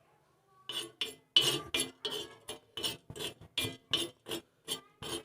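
Utensil stirring cloves and black peppercorns dry-roasting on a hot tawa (griddle): a quick run of sharp metallic clinks and scrapes, about four a second, starting under a second in.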